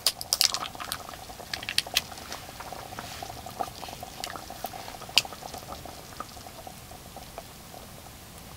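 Thick flour-thickened sauce bubbling in a cast iron pot, with irregular small pops and one sharper pop about five seconds in.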